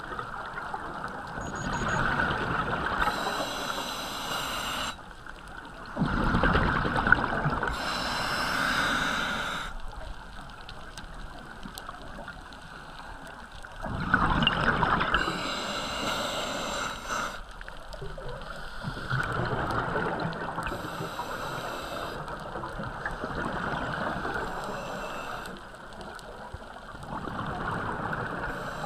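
Scuba diver breathing through a regulator underwater: slow breath cycles of inhaled hiss and exhaled bubbles rushing and gurgling, with louder bubble surges every several seconds.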